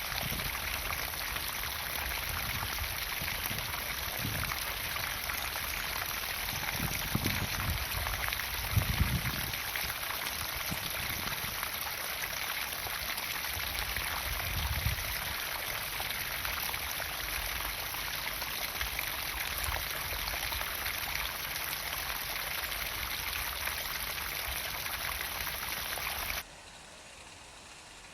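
Water pumped into a garden pond, splashing and pouring in a steady rush, with a few low bumps in the first half. About a second and a half before the end it drops suddenly to a much quieter, duller hiss.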